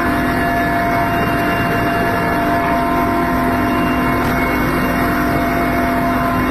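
Loud, steady engine drone with a constant hum, unbroken throughout.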